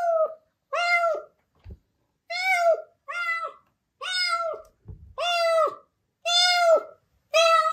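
A calico kitten meowing over and over, about eight high calls roughly a second apart, each rising and then falling in pitch.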